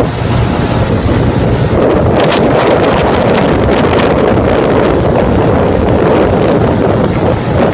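Wind buffeting the microphone of a phone held on a Bajaj Pulsar 220F riding at highway speed: a loud, steady rush with constant flutter, and the motorcycle's running and road noise mixed in underneath.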